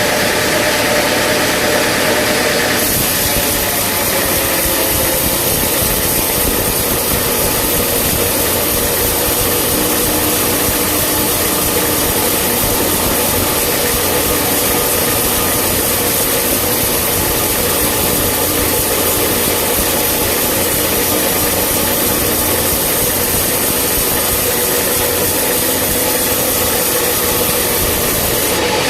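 Engine-driven sawmill machinery running steadily, with a constant hum that sags slowly in pitch through the middle and rises again near the end.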